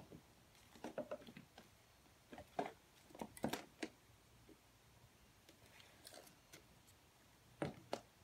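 A kitten's paws and claws pattering and scuffling on a hard tile floor as it bats a toy mouse: scattered faint light taps and clicks in short clusters, about a second in, again between two and four seconds, and near the end.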